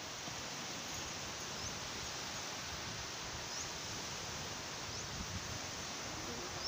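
Steady hiss of small waves washing onto a sandy beach, mixed with wind on the microphone, with a few faint short high chirps.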